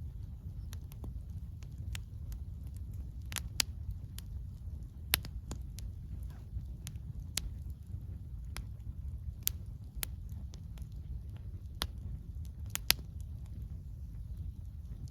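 Wood campfire crackling, with irregular sharp pops and snaps, a few of them loud, over a steady low rumble of soft wind.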